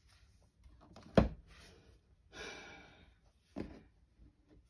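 Cards being handled on a tabletop: one sharp thump about a second in, then a short soft rush of noise and a lighter tap.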